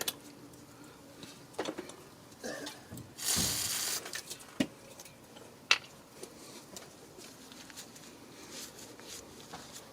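Light clicks and taps of small metal brake parts and tools being handled while a caliper sliding pin is cleaned and greased, with a short rustling burst about three seconds in and a sharper click a couple of seconds later.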